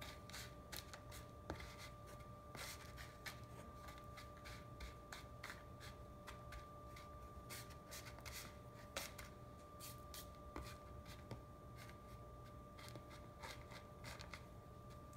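Faint scraping, rustling and light clicks of a buttered Oreo crumb crust being pressed into a container, over a steady faint hum.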